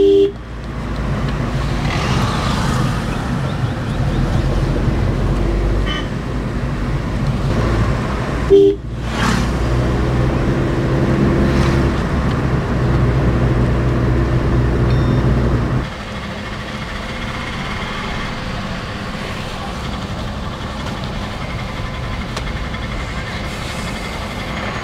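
A vehicle engine running steadily on the road, with a short horn toot about nine seconds in. From about sixteen seconds in the engine sound drops away to a quieter, even road noise.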